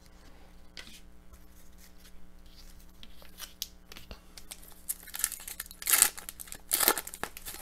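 Foil trading-card pack wrapper being torn open and crinkled: light rustling, then two louder rips near the end.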